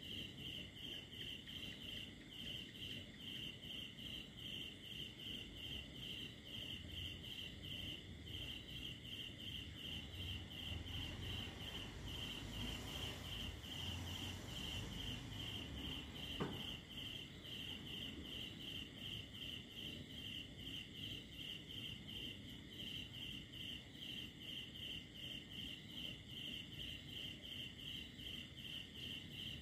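Crickets chirping in a steady, even rhythm of about two to three high chirps a second, over a constant high insect hum. A low rumble swells in the middle, and a single sharp click comes about sixteen seconds in.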